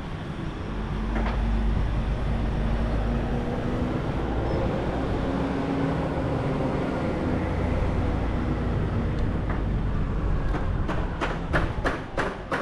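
A motor vehicle's engine running, a steady low rumble with a faint hum. Near the end comes a quick run of sharp taps, about three a second.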